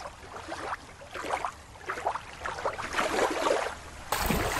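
Beach surf: small waves washing in, swelling and fading every second or so. Near the end, wind starts rumbling on the microphone.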